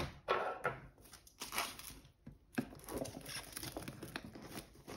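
Cellophane shrink-wrap crinkling and tearing as it is peeled off a cardboard box, in irregular rustling bursts with the box being handled.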